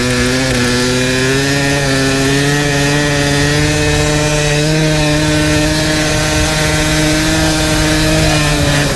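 Dirt bike engine running at steady, fairly high revs under way, its pitch stepping up slightly a couple of times.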